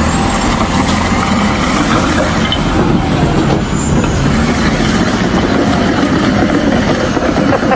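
Loud, steady rasping hiss of steel being cut with sparks, with a faint wavering high whine over it. It stops abruptly at the end.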